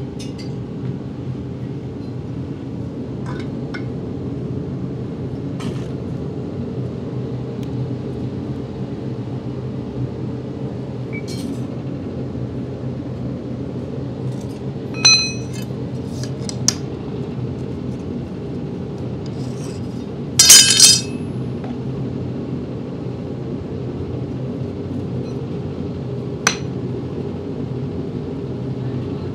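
Scattered metal-on-metal clinks from hand tools and steel moulding flasks over a steady low hum. One clink rings briefly about halfway through, and the loudest is a short rattle of several clinks about two-thirds of the way through.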